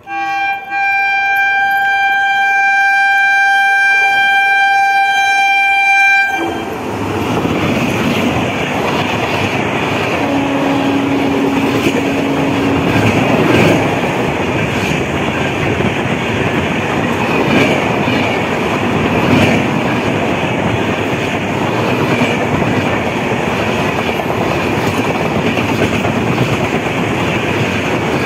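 Express train's horn sounded in one long steady blast of about six seconds, then the loud rushing and clattering of its coaches running past close by at speed, wheels clacking over the rails.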